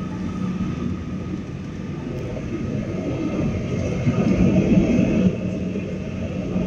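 Airbus airliner cabin noise at a window seat beside the wing-mounted jet engine during the descent to land: a steady roar with a low hum, growing a little louder about four seconds in.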